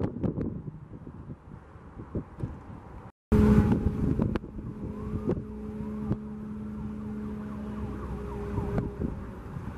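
Sharp pops over wind noise, then, after an abrupt cut, a vehicle engine running with a steady hum, with a faint siren wailing in the distance.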